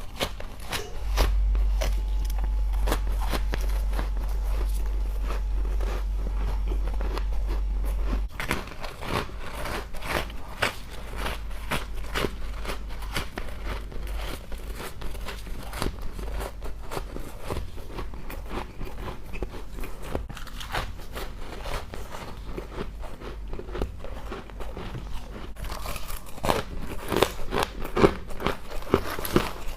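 Close-up crunching of ice being bitten and chewed: dense, irregular sharp crunches throughout. A low rumble runs under the first several seconds.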